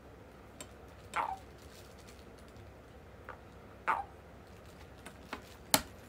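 Handling noise: a handful of light clicks and taps as a steel ruler and fingers move against a toad on a wooden table, with one sharper knock near the end.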